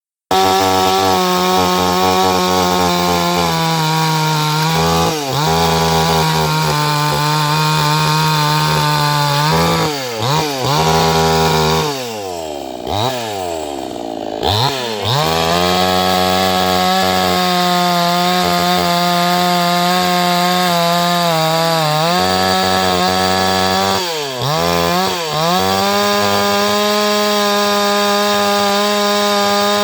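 Chainsaw running at high revs cutting into a wooden log, its pitch dipping briefly several times. Around the middle the revs fall off for a couple of seconds before it revs back up and cuts steadily again.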